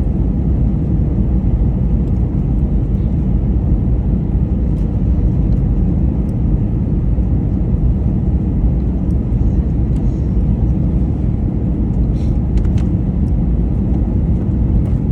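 Steady low rumble of airliner cabin noise inside an Airbus A321neo on final approach, engines and rushing air blending into an even roar.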